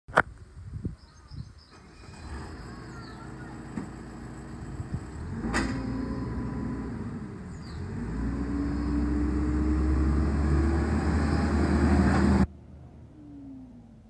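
Manitou MLT634 turbo telehandler's diesel engine running as the machine drives closer, growing louder, its pitch rising as it accelerates over the last few seconds before the sound cuts off suddenly. Sharp clicks near the start and about five and a half seconds in.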